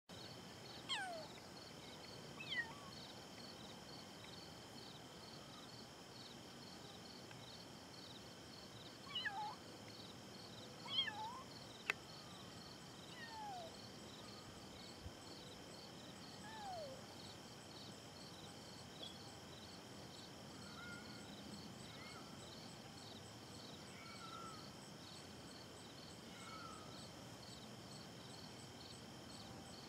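Faint Bengal kittens mewing: about half a dozen short cries falling in pitch, bunched in the first half, then a few fainter short chirps. A steady high insect trilling runs underneath.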